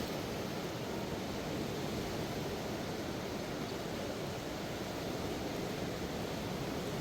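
Steady rushing of a river swollen by floodwater, an even wash of water noise with no breaks.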